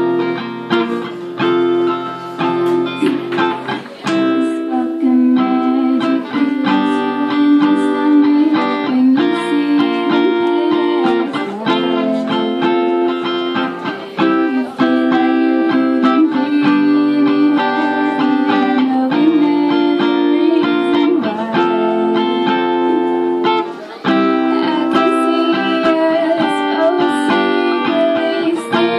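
Acoustic guitar strummed in a steady rhythm, playing a song's chords live.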